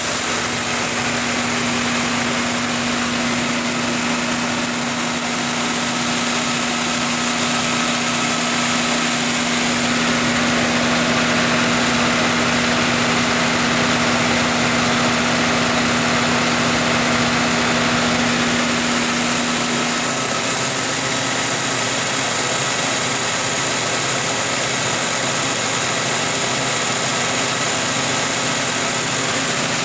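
MTU 16V2000 V16 diesel engine of a Kohler 1000 kW generator set running steadily at constant speed, with a steady high-pitched whine over the engine noise.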